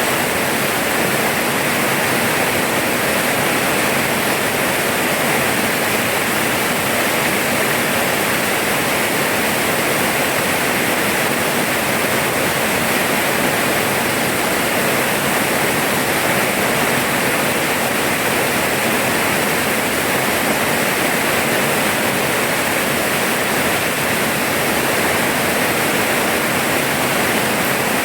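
Steady, even rain falling, a dense continuous hiss with no breaks or distinct drops standing out.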